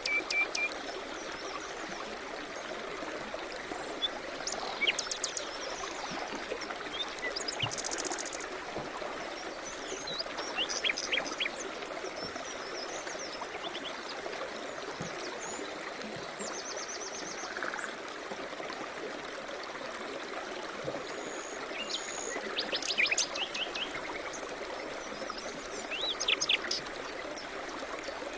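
A stream running steadily, with small birds singing short chirping phrases now and then over the water.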